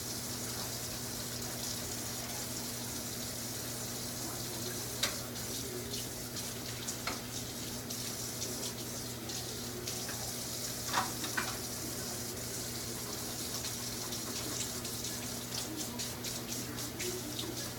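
Kitchen tap running steadily into a sink while dishes are washed by hand, with scattered clinks of dishes and utensils and a faint steady hum underneath.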